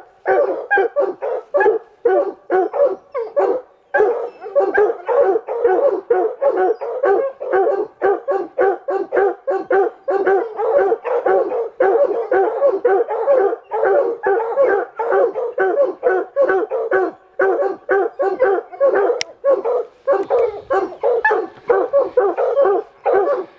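A pack of hunting hounds barking at a tree, rapid overlapping barks several a second: treeing hounds baying a mountain lion held up in a pine. One sharp click sounds briefly near the end.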